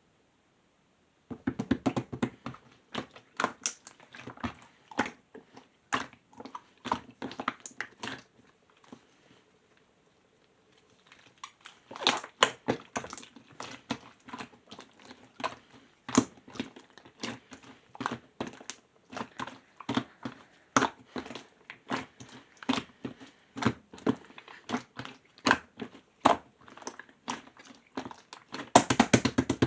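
Clear slime being squeezed and poked by hand, making rapid, irregular clicking pops and squelches. The clicking stops for about two seconds near the middle and comes thickest near the end.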